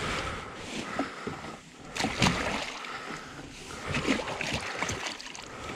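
Water splashing and sloshing as a large pike is lowered into a landing net held over the side of a small rowing boat and released.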